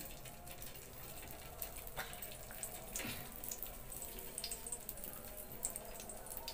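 A sausage stick sizzling on a grill pan over a portable gas stove: a steady hiss flecked with small crackles.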